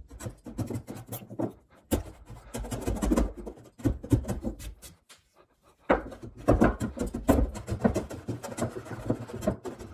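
Stanley hand router plane paring pine out of a shallow recess in a 2x4: a quick run of short scraping cutting strokes, stopping for about a second near the middle, then starting again.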